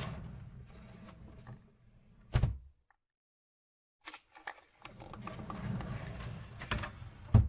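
A furniture drawer sliding along its runners with a low rumble, stopping with a knock about two and a half seconds in. After a short pause and a few clicks it slides again, ending in a louder knock near the end.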